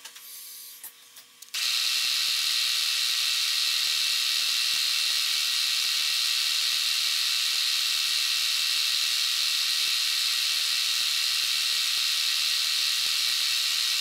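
Milling machine spindle running at high speed while a 0.040-inch drill bores through a brass casting: a steady, high-pitched whir and hiss that comes in abruptly about a second and a half in and holds level throughout.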